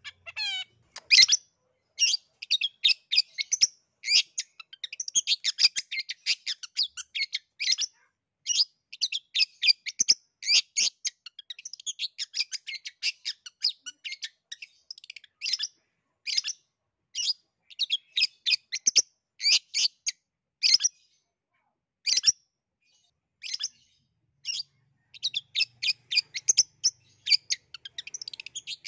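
Long-tailed shrike (cendet) singing vigorously: long runs of rapid, varied high chirping notes broken by brief pauses, with a quick falling whistle about half a second in.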